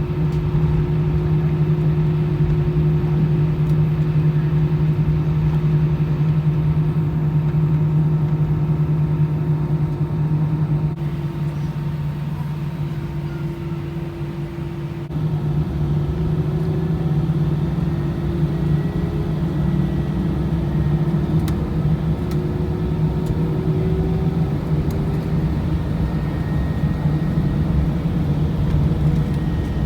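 Airliner cabin noise: jet engines and cabin air making a steady low drone with a strong hum. It dips slightly for a few seconds near the middle, and a faint tone slowly rises in pitch after that.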